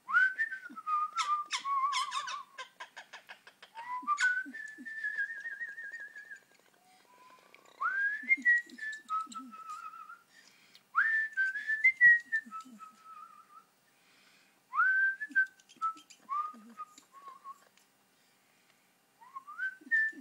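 Whistling: about six short whistled phrases with gaps between, each starting with a quick upward slide and then holding a note or warbling, with a run of clicks in the first phrase.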